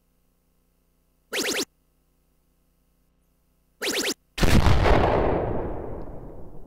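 Electronic dartboard game sound effects: two short rising electronic chirps as darts score, then a loud explosion-like blast that dies away slowly, the board's Low Ton award for a 140 turn.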